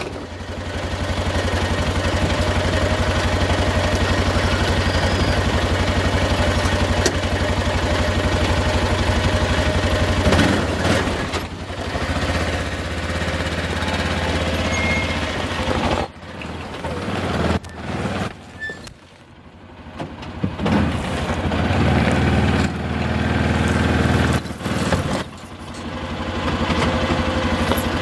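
Arctic Cat Prowler 550 side-by-side's engine running steadily under way. It eases off and drops low for a few seconds past the middle, then picks up again near the end.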